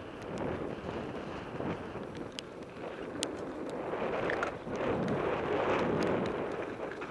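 Mountain bike ridden fast over a gravel track and dirt singletrack: tyre rumble and wind on the microphone, with scattered sharp clicks and rattles from the bike.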